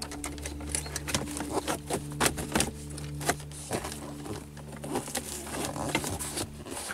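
Plastic center-console trim panel around the gear lever being pried up and worked by hand: a run of irregular clicks, taps and rattles from the plastic trim and its clips.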